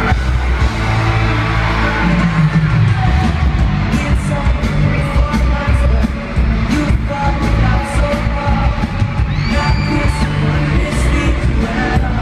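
Live pop-rock concert: a boy band singing over a full band with heavy bass and drums, amplified through a stadium PA, with fans yelling and whooping over it.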